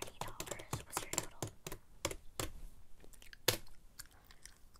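Mouth clicks and smacks made right at a clip-on microphone, a rapid, irregular string of sharp clicks that thins out after about two and a half seconds, with one louder click about three and a half seconds in.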